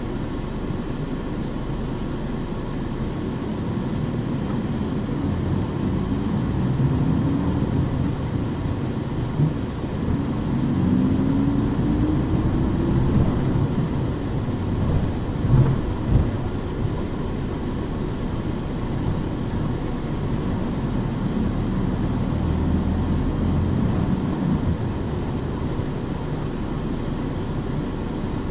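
Onboard running sound of a KC-UA460HSN one-step city bus with Fuji Heavy Industries 7E body: a steady diesel rumble with road noise. The engine pitch rises as the bus pulls away and accelerates, from about six to thirteen seconds in. A couple of sharp thumps follow a few seconds later.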